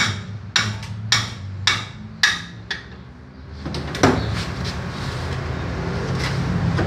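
Hammer blows on a steel drift pushed through a Honda CG swingarm pivot, knocking out the bushing's iron inner sleeve: about five sharp strikes roughly half a second apart, a short pause, then one hard strike and a few lighter taps. A steady low hum runs underneath.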